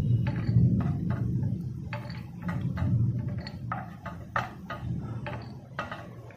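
Wooden spatula scraping fried almonds, peanuts and cashews across a nonstick frying pan and dropping them into a bowl: a run of short clicks and clatters, a few a second, over a low steady hum.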